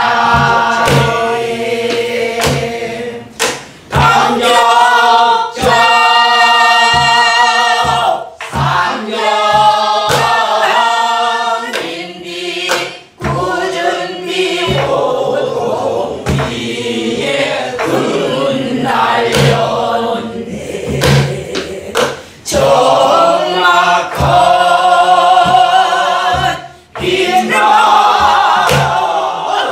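A group of amateur singers sings a Namdo folk song (Korean southern-style minyo) together, accompanied by strokes on a sori-buk barrel drum.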